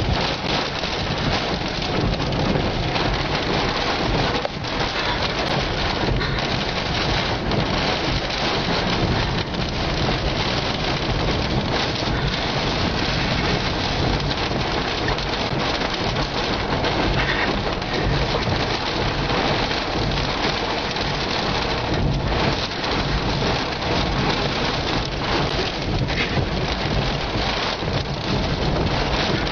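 Heavy rain on a car's roof and windshield, heard from inside the cabin as a steady, dense hiss.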